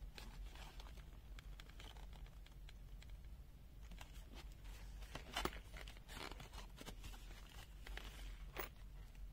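Rustling and scattered small clicks of a screwdriver and bit set and its packaging being handled, with a sharper click about five and a half seconds in and another near the end.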